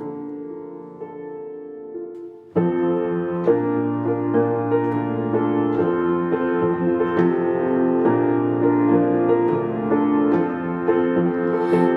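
Soft sustained music, then about two and a half seconds in a grand piano comes in louder, playing a song's introduction with repeated chords over a low bass line.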